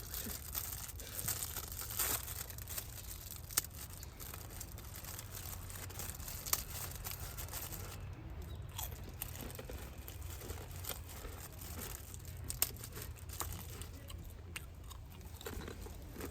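Irregular crackles, snaps and crunches at a wood campfire, over a steady low rumble.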